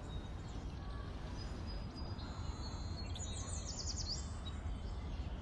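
Steady low background noise, with a faint quick run of high chirps about three and a half seconds in.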